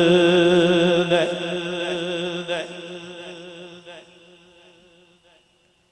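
A man's voice singing a naat into a microphone, holding one long steady note at the end of a line and then fading away over several seconds until it is almost silent near the end.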